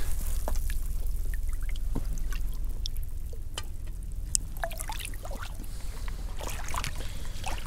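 Small trickles, drips and light splashes of water as a hand moves through a shallow rock pool, over a steady low rumble.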